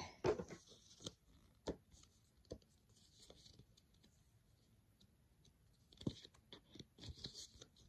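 Faint rustling and light clicks of Pokémon trading cards being handled and slid through by hand, sparse at first and busier near the end.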